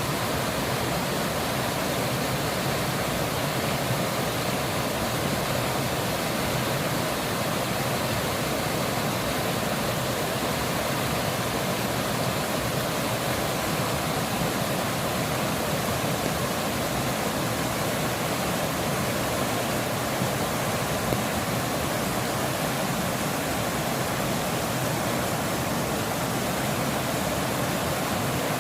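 Mountain stream swollen after rain, rushing steadily over rocks.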